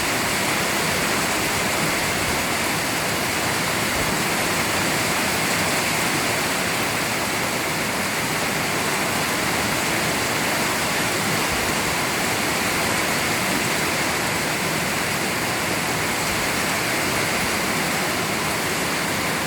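Heavy rain falling, a steady, dense hiss that holds unchanged throughout.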